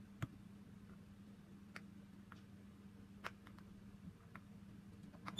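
Near silence over a low steady hum, with a few faint scattered clicks and taps from hands struggling to twist open a small container that is hard to open.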